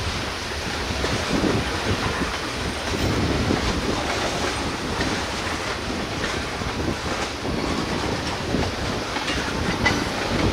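CSX freight train's cars rolling past, steel wheels clicking over rail joints amid a steady rumble.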